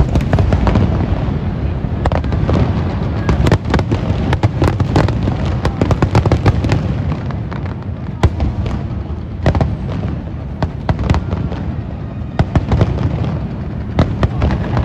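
Fireworks display: a continuous low rumble of shell bursts with rapid sharp crackles and pops layered over it, thickest in the first half and again near the end.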